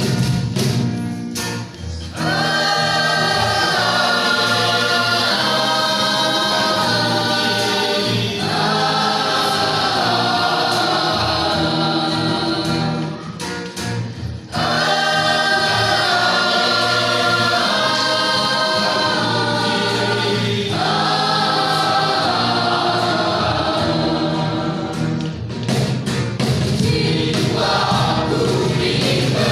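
Church youth choir singing a Christian song in harmony, holding chords in long phrases. A few sharp taps fall in the short breaks, near the start and again about 13 seconds in.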